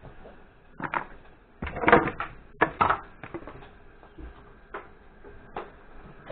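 Irregular sharp clicks and knocks of hands working through food in an orange plastic mixing bowl, a cluster of them about two seconds in and a couple of single ones later.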